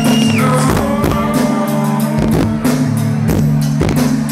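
Live indie rock band playing: a sustained low keyboard chord under electric guitar, with a steady drum beat of about two hits a second.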